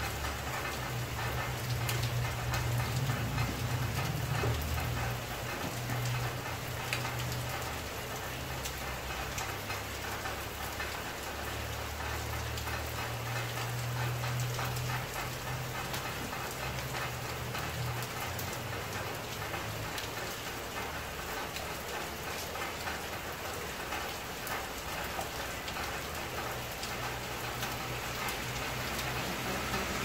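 Steady rain falling, with many small drop ticks over an even hiss and a low rumble underneath that swells and fades.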